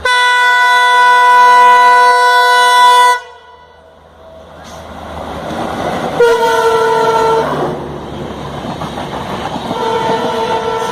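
Locomotive horn of an approaching express passenger train: a loud blast of about three seconds that cuts off sharply, a shorter blast about six seconds in, and another starting near the end. Between the blasts, the rumble of the oncoming train grows steadily louder.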